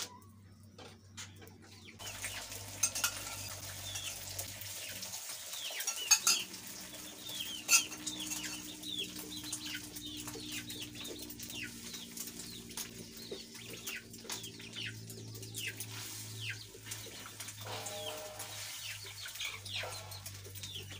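Chickens clucking and cheeping with short, rapid falling chirps, along with a few sharp clinks of a metal spoon against the frying pan in the first half.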